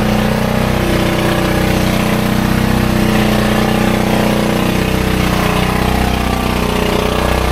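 An engine running steadily at one constant speed, an even unchanging drone.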